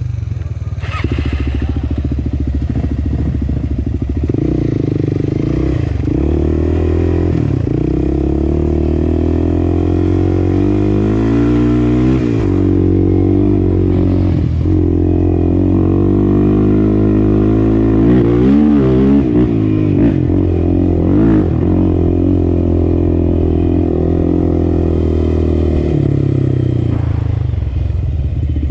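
Single-cylinder sport ATV engine running on a trail ride, its pitch rising and falling again and again with the throttle, with a few brief knocks along the way.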